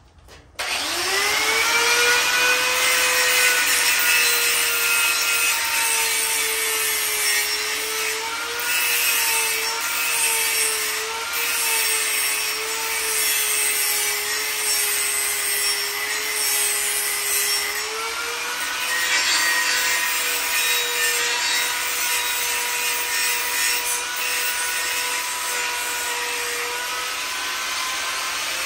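Angle grinder spinning up about half a second in, then grinding down a large weld bead on a metal motorcycle sissy bar: a steady motor whine that dips and wavers as the disc is pressed into the weld, over a continuous grinding rasp.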